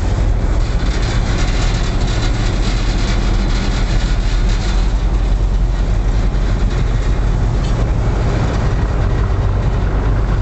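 Small passenger ferry's engine running steadily under way: a loud, continuous low drone with a broad rushing noise over it.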